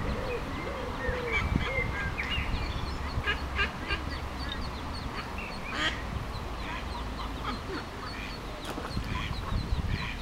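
Mallard ducklings peeping over and over in short, high notes, mixed with a few lower calls from the adult mallards in the first couple of seconds and brief splashes in the water.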